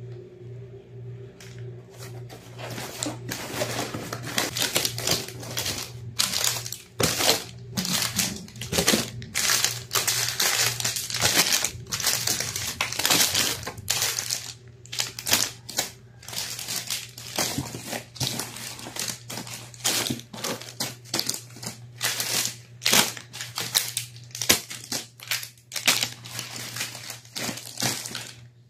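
Plastic-wrapped soap packets crinkling and rustling as they are lifted out of a cardboard box and stacked, a dense, uneven run of crackles over a low steady hum.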